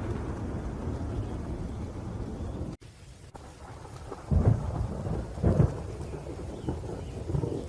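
Steady rain with rolling thunder. The sound drops out for an instant near three seconds in, then two loud thunderclaps come about a second apart.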